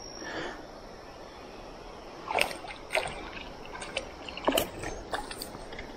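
A small smallmouth bass on the line splashing and thrashing at the water surface as it is reeled in: a few short splashes, the loudest about two and a half seconds in and again about four and a half seconds in.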